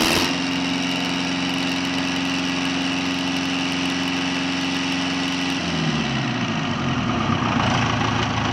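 Cummins B3.3 four-cylinder diesel engine running steadily, then slowing down about five and a half seconds in, its pitch falling, and running on at a lower speed.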